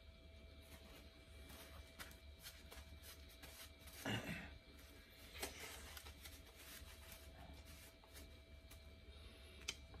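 Near silence: quiet room tone with a steady faint hum and a few faint clicks, and one brief louder sound about four seconds in.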